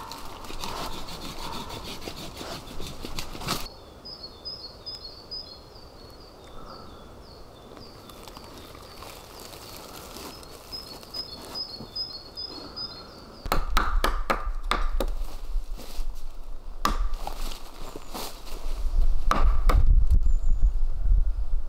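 Dry leaves and twigs rustling, with a small bird chirping in quick repeated phrases in the background through the middle. About two-thirds in, the sound gets louder with a run of wooden knocks and thuds as a long dead log is handled and lifted, over a low rumble.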